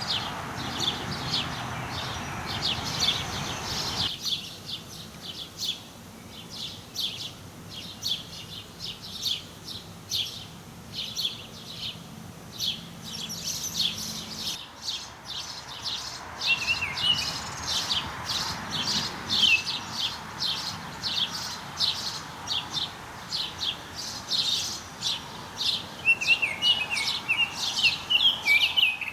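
Birds chirping rapidly, short high chirps several a second, with a few warbling notes about two-thirds of the way in and near the end. A steady background hiss drops away abruptly about four seconds in.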